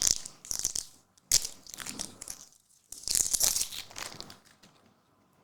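Trading-card pack wrapper being torn open and crinkled, in several short crackling bursts that die away near the end.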